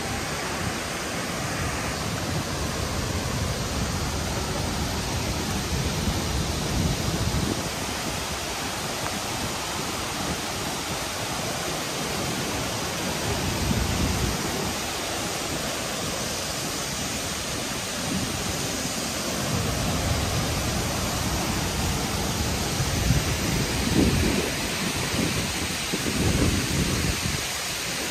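Waterfall rushing in a steady even roar, with low rumbles that come and go.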